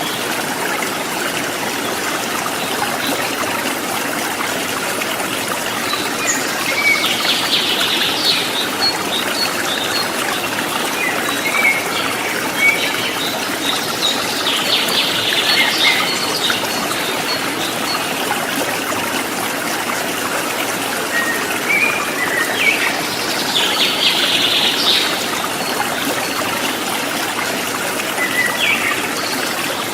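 Shallow river running over rocks, a steady rush of water. Birds call over it in three short bouts, with a few single chirps between.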